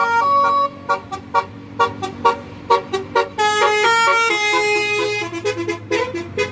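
A bus's Basuri telolet multi-tone horn playing a tune. A run of short, quick toots is followed by longer held notes that step up and down in pitch, then quick toots again, over a low steady hum.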